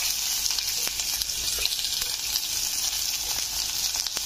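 Onions and green chillies sizzling as they fry in hot oil in a pressure cooker, a steady high hiss with a few light clicks of a steel ladle against the pot.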